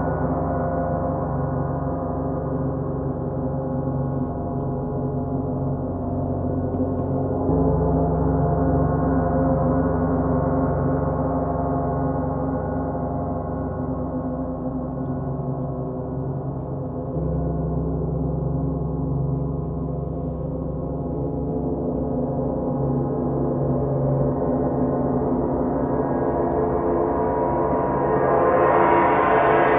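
Large gongs, a 32-inch Sound Creation Earth gong and a 28-inch Planet Jupiter gong, played with mallets in a continuous wash of overlapping, sustained tones. The low tone shifts about seven seconds in and again about seventeen seconds in as new strokes swell. Near the end a bottom-row bronze gong joins, and the sound grows brighter and louder.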